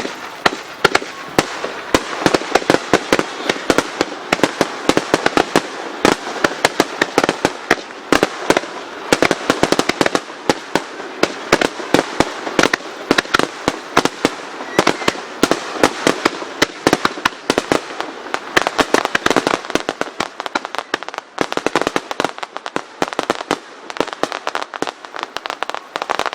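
Aerial fireworks in a rapid-fire starmine barrage: dense, irregular bangs of shell bursts, several a second, over a continuous crackle.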